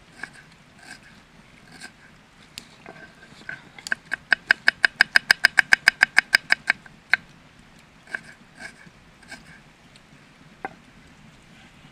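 Kitchen knife chopping a small red onion on a wooden cutting board: a few single cuts, then a fast even run of about twenty chops, roughly seven a second, starting about four seconds in and stopping near seven seconds, then a few more single cuts.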